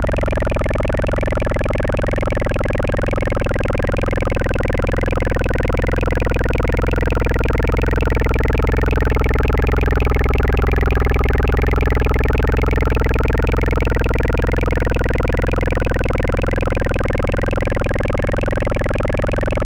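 A dense electronic drone made of many stacked steady tones. Their pitches sag slowly and together toward the middle, then rise back again.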